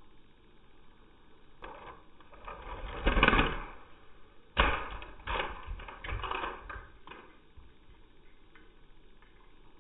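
Custom LEGO cars colliding on carpet. A rising rush of noise peaks about three seconds in, a sharp crash comes about four and a half seconds in, then loose plastic bricks rattle in a few short bursts.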